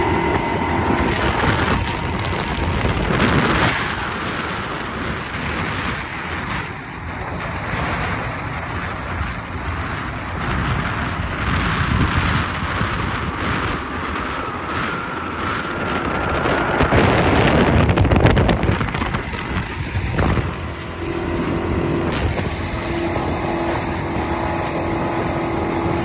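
40 hp two-stroke outboard motor running at speed and driving a small fibreglass dory, with wind buffeting the microphone and water rushing past the hull.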